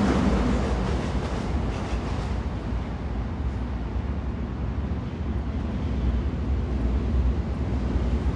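Train running, a steady low rumble with a rushing noise above it, easing a little midway and building again near the end.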